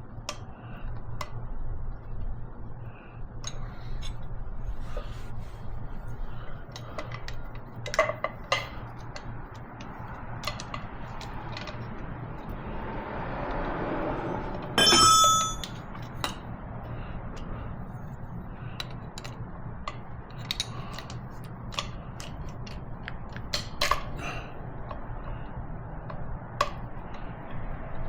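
Wrenches and other hand tools clinking against the metal injector-line fittings of a diesel engine that is not running, with scattered light clicks and one loud ringing metallic clank about halfway through.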